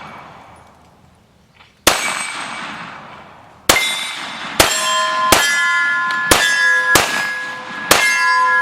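Seven pistol shots from a Glock 41 in .45 ACP, each hitting AR500 steel targets that ring with a clear metallic tone. The first two shots come about two seconds apart, then five more follow roughly a second apart, their ringing overlapping.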